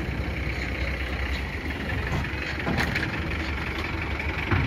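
Car engines running at low speed as cars drive slowly off a ferry ramp, a steady low rumble, with a short low thump near the end.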